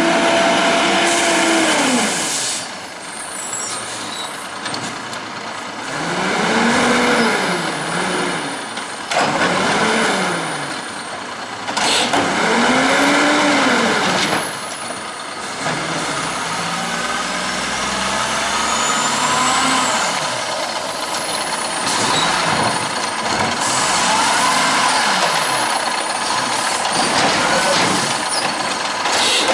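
WhiteGMC Amrep automated side-loader garbage truck running on its diesel engine, revving up and down several times in swells of about two seconds, with short sharp air-brake hisses between them as it stops and starts at the carts. Near the end the revs climb again as the lifting arm raises a cart.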